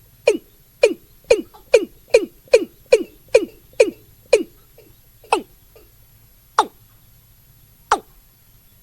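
Male watercock calling: a series of short, deep notes, each sliding downward in pitch, about two to three a second, then spacing out to single notes more than a second apart from about five seconds in.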